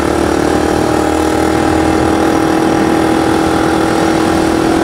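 Scooter engine pulling at steady speed through a worn, loud exhaust, a continuous drone held at one pitch. The owner says the exhaust has gone bad by itself.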